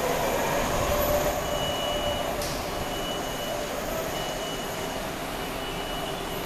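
MARTA rapid-transit train's rumble fading slowly as it moves away. A high electronic beep repeats steadily from about a second and a half in.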